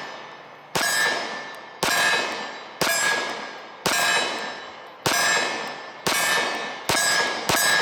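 A SIG Sauer P365 9mm pistol fired eight times at a slow, steady pace of about one shot a second, the last two closer together. Each shot is sharp and is followed by a metallic ring that dies away.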